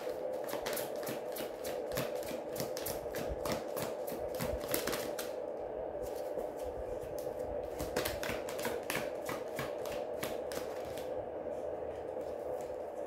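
A tarot deck being shuffled by hand: rapid runs of card flicks and slaps, in several runs with short pauses, over a steady hum.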